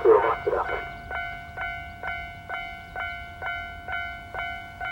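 Japanese railway level crossing's electronic warning bell ringing, an even clang about twice a second over a held ringing tone: the crossing is closed for an approaching train. A brief burst of the crossing's recorded voice announcement is heard at the start.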